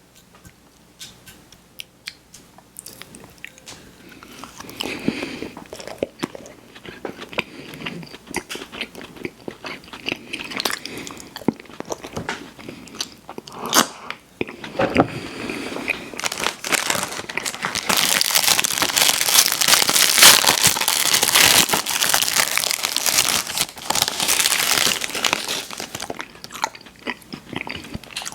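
Close-miked eating: a person biting into and chewing snacks, with sharp crunches and wet mouth clicks. It starts faint and grows denser, with a long stretch of loud crunching in the second half.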